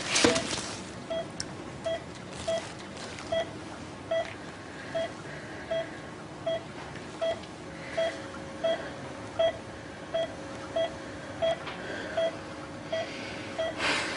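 Bedside patient monitor beeping steadily with the heartbeat, a short beep at one pitch about four times every three seconds. A brief rush of noise sounds right at the start.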